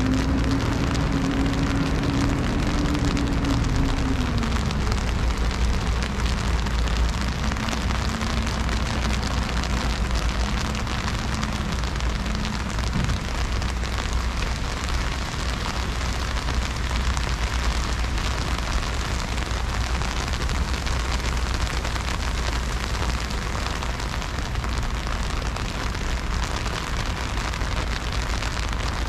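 Heavy freezing rain falling steadily onto pavement and street surfaces, over a low rumble. A low steady hum drops slightly in pitch about four seconds in and fades out after about twelve seconds.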